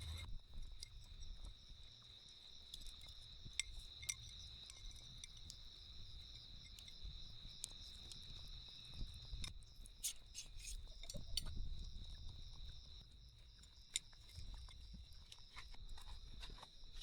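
Insects trilling steadily at a high pitch, with scattered light clicks and knocks over a low background rumble.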